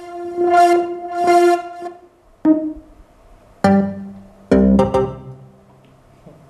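Casio XW-G1 synthesizer playing preset sounds: a held, bright pitched note that swells twice and fades out, then a few separate notes and a lower chord, each struck sharply and dying away like plucked strings.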